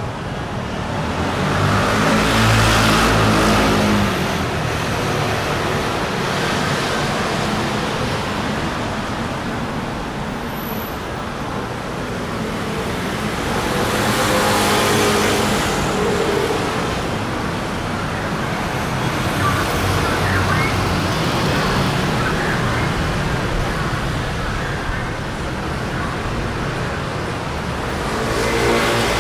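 Street traffic, with motor vehicles passing close by one after another over a steady background of road noise. The engine sound swells loudest about two to four seconds in, and again around fifteen seconds in.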